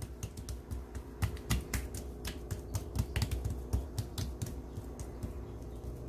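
Hands patting and pressing soft porotta dough thin on a countertop: a quick, irregular run of light taps and slaps that thins out near the end.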